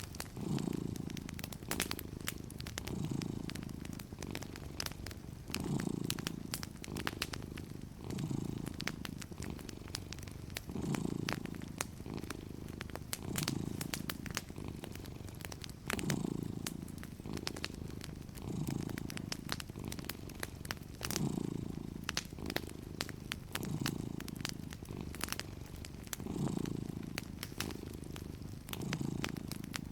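Domestic cat purring steadily, the purr swelling and easing with each breath about every two and a half seconds. A wood fire crackles over it with scattered small pops.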